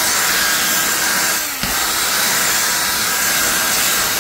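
Ryobi cordless drill running steadily, spinning a stiff bristle drill brush that scrubs cleaner-soaked fabric car-seat upholstery. The motor briefly slows about a second and a half in, then picks back up.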